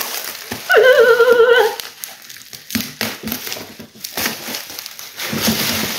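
Bubble wrap and plastic packaging crinkling and crackling as it is pulled apart and handled with scissors, in scattered irregular rustles. About a second in there is a short, high, wavering voice-like note.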